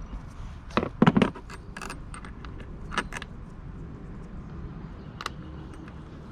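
Small metal hardware and tools clinking and rattling as they are handled, with a short cluster of louder knocks about a second in and single clicks later.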